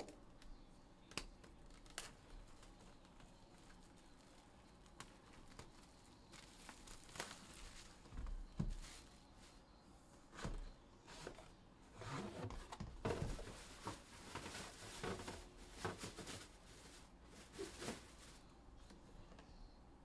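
Plastic wrap on a Panini Flawless briefcase crinkling and tearing as it is pulled off by hand, with a few light clicks of handling. The crinkling comes in irregular spells, busiest through the middle of the stretch.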